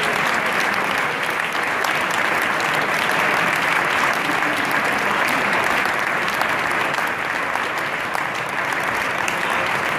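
Audience applauding steadily, a dense continuous clapping that holds at an even level.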